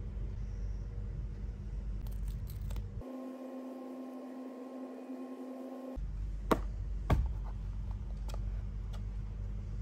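Sharp clicks of small plastic action-figure parts being handled, the two loudest a little past the middle and fainter ones after them. A steady low hum runs underneath and gives way to a higher steady tone for about three seconds.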